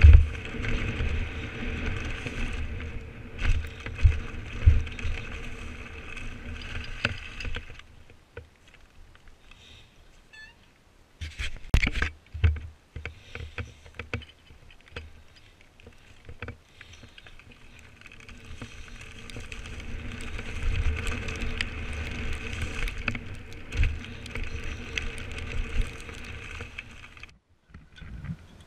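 Mountain bike running down a dirt forest trail, heard from a camera mounted on the bike: a steady buzz and rattle with low thumps from the bumps, fading for a few seconds in the middle. A cluster of loud knocks comes around twelve seconds in.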